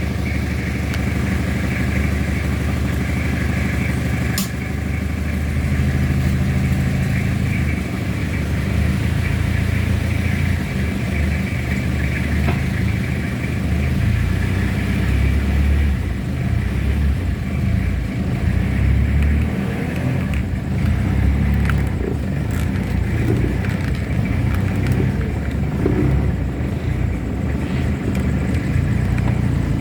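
Toyota Kijang Kapsul diesel engine running steadily, a low continuous hum whose strength shifts now and then.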